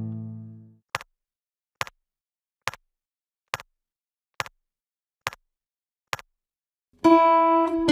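A nylon-string guitar chord rings out and fades, then a metronome clicks a count-in at 69 bpm, seven even clicks a little under a second apart. The guitar comes back in near the end, playing at the new tempo.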